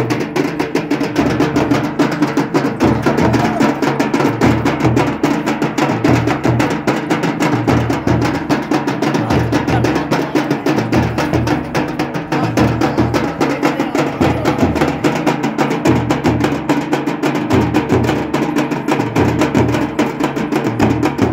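Drum music played at a fast, steady pace: dense rapid strokes over a deep, repeating beat, with a steady held tone underneath.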